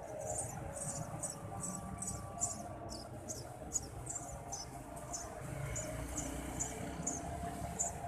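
Eurasian tree sparrow nestlings begging: thin, high-pitched cheeps repeated about three times a second, over a low background rumble.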